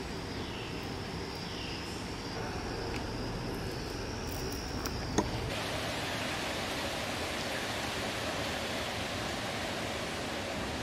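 Steady outdoor hiss with no voices, and a single sharp click about five seconds in. Just after the click the hiss turns brighter.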